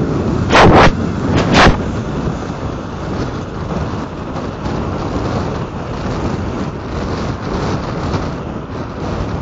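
Steady wind rush on the microphone with engine and road noise from travelling at highway speed among a group of motorcycles. Two brief, loud blasts of noise come about half a second and a second and a half in.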